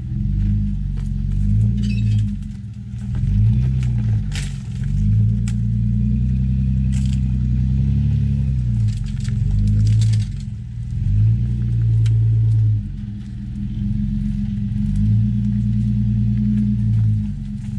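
Toyota 4Runner's engine rising and falling in revs as it crawls up a rock ledge in low range, with a few sharp knocks of tyres and underbody against rock.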